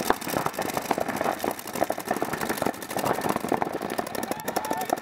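Several paintball markers firing rapid strings of shots at once, a dense, continuous run of sharp pops.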